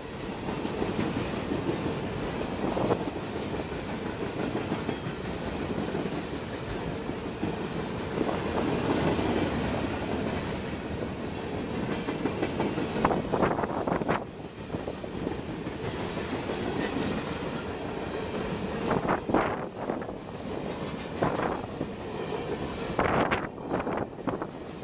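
Freight train of boxcars and centerbeam flatcars rolling past close by, its steel wheels clattering over the rail joints in a steady clickety-clack, with a few sharp clanks in the second half.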